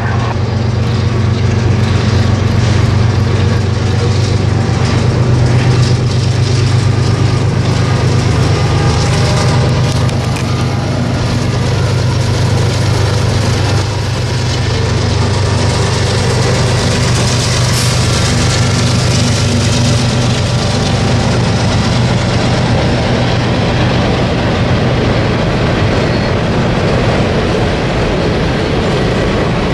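Diesel freight locomotives running with a steady low engine rumble as a freight train crosses a steel bridge. In the second half the hiss of steel wheels rolling on the rails swells as the freight cars pass.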